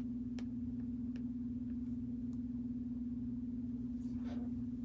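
A steady low electrical hum on one unchanging tone, with a few faint clicks.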